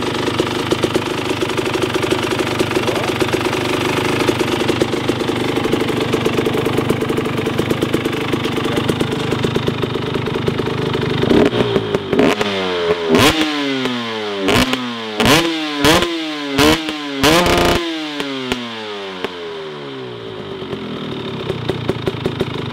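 KTM EXC 300 two-stroke enduro engine with a Pro Circuit exhaust idling on the stand, then given about five quick, sharp throttle blips in a row that each rise and fall back, before settling to idle again.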